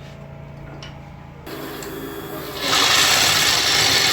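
Two Lion industrial post-bed sewing machine: the motor hums steadily, then the machine starts running about a second and a half in and gets much louder near the middle as it sews at speed.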